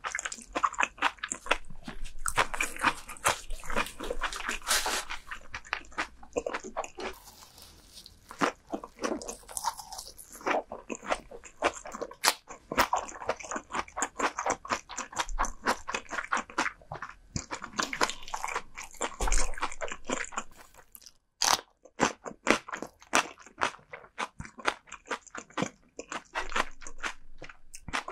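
Close-miked ASMR eating: a person chewing crunchy food in quick, irregular crunches and crackles, with a short pause about three-quarters of the way through.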